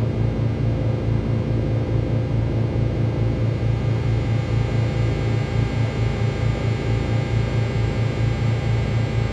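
Cessna 310Q's two piston engines running steadily, with an even throb several times a second.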